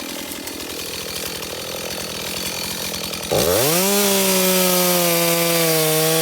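Stihl MS 251 two-stroke chainsaw running low, then about three seconds in it is throttled up sharply to a high, steady full-throttle scream, its pitch wavering slightly.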